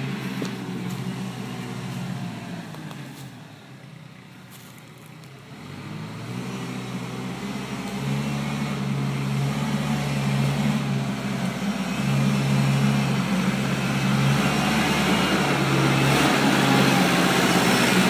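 Kubota compact tractor's diesel engine running steadily as it drives closer, dropping away briefly around four seconds in, then growing louder until it is loudest near the end.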